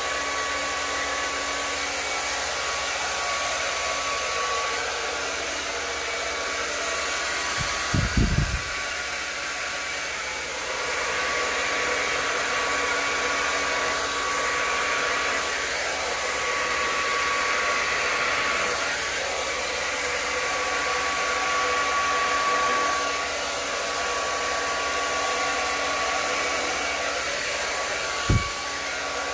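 Conair handheld hair dryer running steadily on its cool setting, a steady rush of air with a faint whine. Two brief low bumps break in, about eight seconds in and again near the end.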